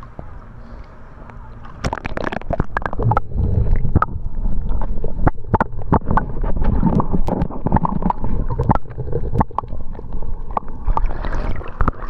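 Swimming-pool water splashing and gurgling over a submerged microphone, with many sharp knocks and bubbling. It grows louder about two seconds in as the camera goes under the surface and comes back up.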